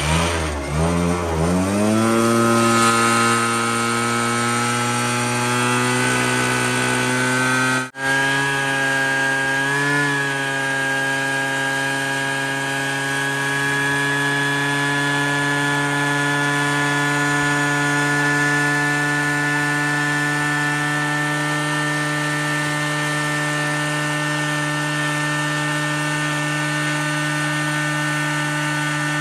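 Gas backpack leaf blower engine revving up over the first couple of seconds, then running steadily at high throttle, mixed with the motors of several shop vacuums all pulling suction together. The sound cuts out for an instant about eight seconds in.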